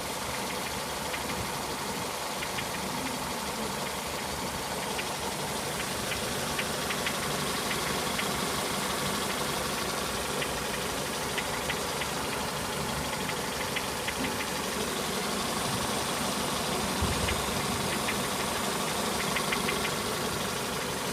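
Car engine idling with a knock from the crankshaft pulley: quick clusters of sharp ticks come and go over the steady running. The owner takes it for a failing crankshaft damper (harmonic balancer).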